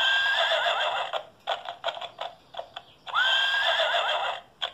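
Recorded horse whinnying twice, with clip-clopping hooves between and after, played through the small speaker of a Melissa & Doug wooden farm sound puzzle when the horse piece is lifted out. The sound is thin, with no low end. Each whinny is a high note that wavers for about a second, the first at the start and the second about three seconds in.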